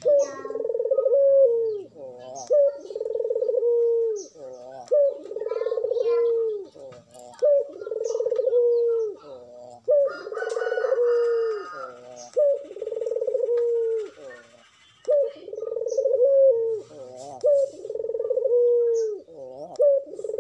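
Domestic ringneck (Barbary) dove cooing over and over, a quick series of coos each made of a short note and a long drawn-out one, about one every second and a half: the much-repeated cooing of a bird in breeding condition.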